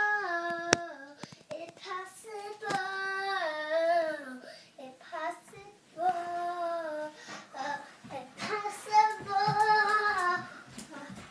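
A young child singing alone, without accompaniment, in several drawn-out phrases with sliding pitch and short pauses between them.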